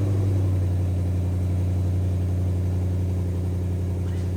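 Ford Mustang GT's V8 idling steadily just after starting up, its engine note easing slightly in the first second and then holding even.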